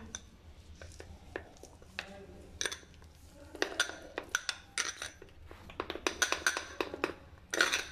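Metal spoon stirring whipped cream into melted chocolate in a cut-glass bowl, clinking and scraping against the glass in quick, irregular taps.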